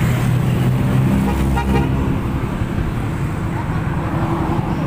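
Vehicle engine running on the move, with steady road and wind noise.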